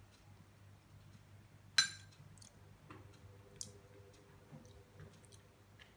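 Metal spoon clinking against a ceramic bowl while eating curry: one sharp ringing clink about two seconds in and a lighter clink a couple of seconds later, with a few faint ticks over a quiet, steady room hum.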